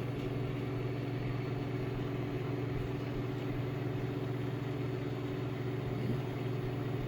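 Steady low electrical hum of a microwave oven running off an Inergy Kodiak portable power station's inverter, under heavy load.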